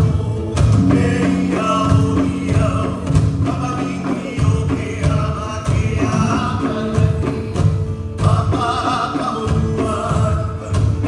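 Music: a song with singing over a strong, steady beat.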